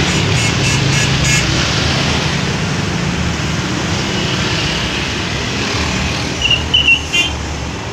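Bus engines running with a steady low rumble amid traffic. A few short high-pitched chirps sound in the first second and a half, and again a little before the end.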